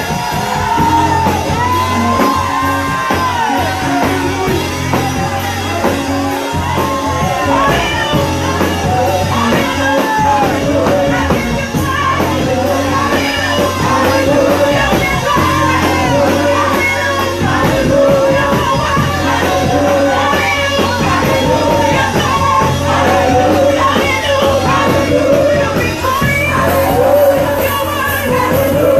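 Live gospel praise music with singers, a band and shouting.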